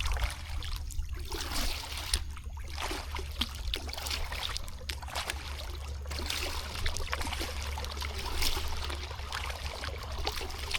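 Kayak paddle blades dipping and pulling through the water, with water trickling and dripping off them in an uneven rhythm of splashes. A steady low rumble runs underneath.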